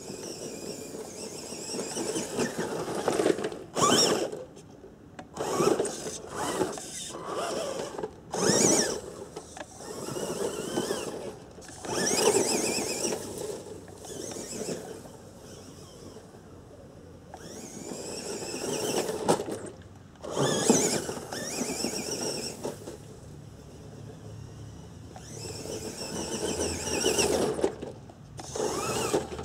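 Tamiya Lunchbox radio-controlled monster truck's electric motor and gearbox whining as it drives on dirt, swelling in repeated bursts of throttle that rise and fall in pitch, with quieter stretches between as it runs farther off.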